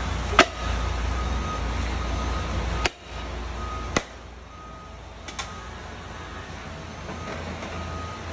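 Four short, sharp metallic knocks as the installation plate and cylinder sleeves are set into a heated aluminium Ford Coyote engine block; the first knock is the loudest. Under them is a steady low shop hum, which drops away about three seconds in, and a faint repeating beep.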